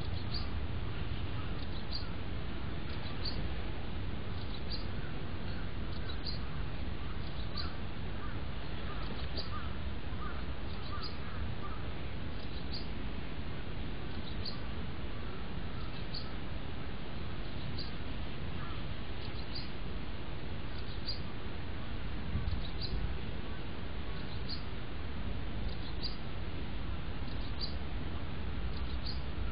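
Outdoor ambience with birds calling: a short high chirp repeats about once a second, with some fainter wavering calls about a third of the way in, over a steady low rumble.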